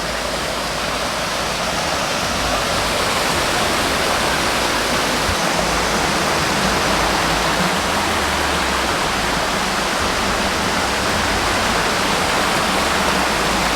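Waterfall pouring, a steady, loud rush of falling water.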